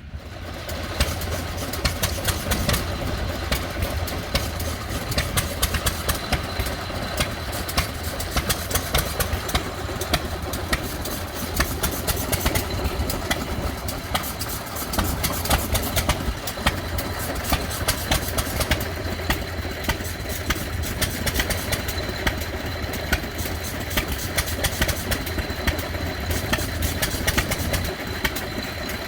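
An engine running steadily at idle, its rapid firing pulses even throughout.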